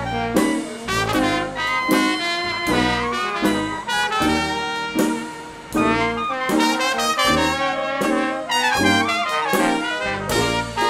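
Background jazz music led by brass horns, over a steady beat.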